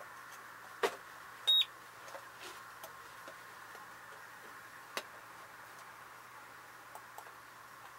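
A single short, high electronic beep from a Sosna handheld dosimeter about a second and a half in, likely signalling a push-button start of its measurement cycle. Light clicks of the plastic unit being handled and set down come just before the beep and again about halfway through.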